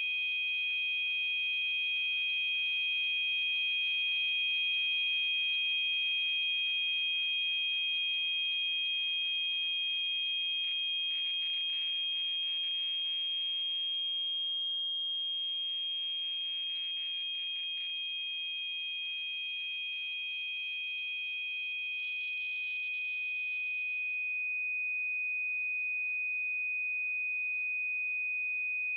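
Synthesized tinnitus-masking tones: two steady, high-pitched pure tones held together over a faint hiss. The higher tone fades out about three-quarters of the way through, leaving the lower tone sounding alone.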